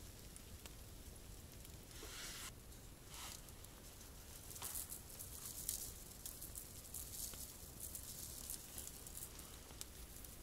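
Faint campfire crackle with food sizzling on the embers: many small pops and ticks, with a few brief louder hissing rushes between about two and five seconds in.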